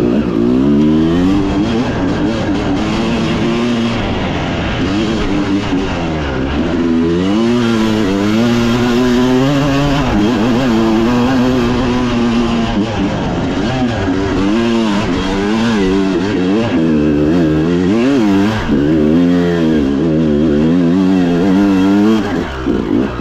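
Dirt bike engine running hard, its revs rising and falling again and again as the throttle is worked on a trail ride, with a brief dip near the end.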